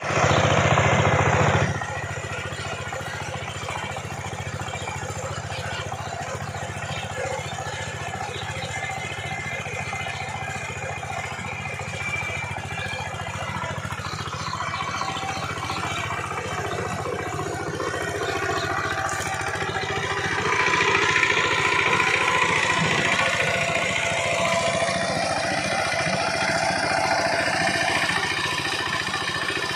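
Two-wheel power tiller's single-cylinder diesel engine running steadily under load as its rotary tiller churns dry rice stubble, with a rapid chugging beat. A much louder burst fills the first second or two, and the engine grows louder again about two-thirds of the way through.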